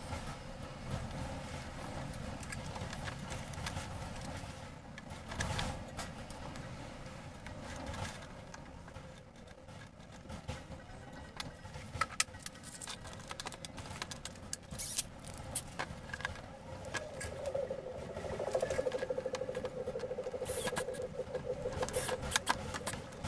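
Hand tools scraping, grinding and tapping in a small hole in a laminated camper door panel as the hole is opened out for an indicator's spindle, with a scatter of sharp clicks. From about two thirds of the way in, a steady buzzing tone with a rapid pulse comes in and keeps on.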